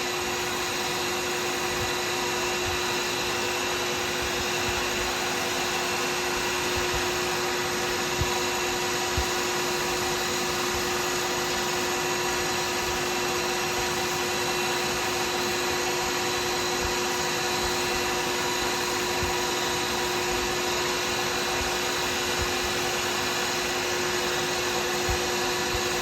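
Woodturning lathe running steadily, its motor giving a constant hum with a steady whine.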